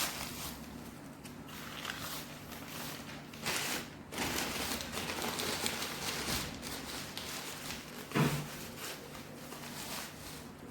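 Newspaper crinkling and coconut coir rustling as hands crumple paper into balls and pack them into a coir bird's nest, with irregular small crackles throughout.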